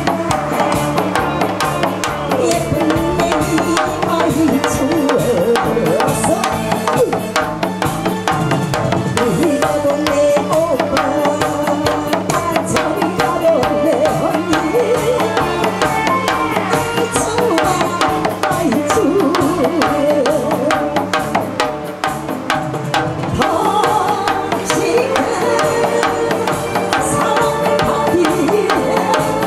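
Music with a steady drum beat and a melody line that bends up and down in pitch.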